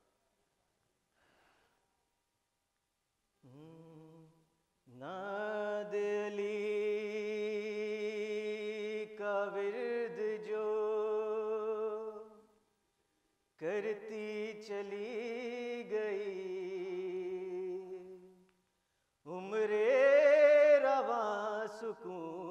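A man sings unaccompanied, drawing out long wordless held notes with vibrato in the manner of Urdu devotional poetry recitation. There are three long phrases after a few seconds of silence; the last climbs in pitch and is the loudest.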